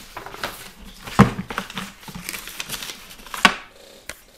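Short knocks and clicks over a faint rustle, like objects being handled near the microphone. The two loudest knocks come about a second in and about three and a half seconds in.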